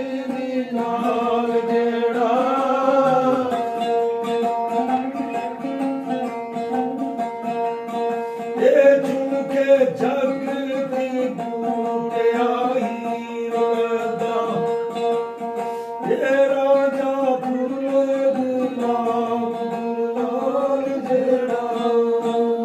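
A man sings a Sufi devotional poem (arifana kalam) in long, bending phrases over a plucked string instrument and a steady drone.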